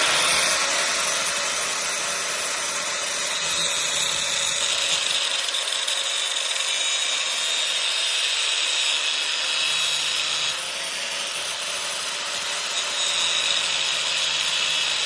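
Angle grinder cutting through a steel coil spring. It runs continuously with a harsh hiss of the disc on the metal over a steady motor whine, and eases off slightly about ten seconds in.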